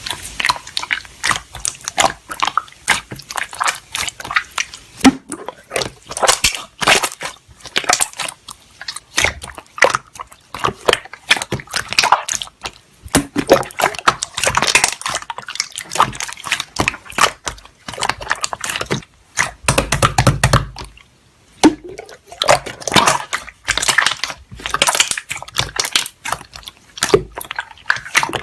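Slime being squeezed, stretched and pressed by hand, making dense, irregular wet clicks, pops and squelches. A brief dull low thud comes about two-thirds of the way through.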